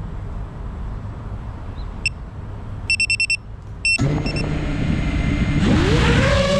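Quadcopter drone starting up: a few short high electronic beeps, first one alone, then a quick run of five, then one more. About four seconds in its motors spin up with a steady hum. Synth music fades in over it near the end.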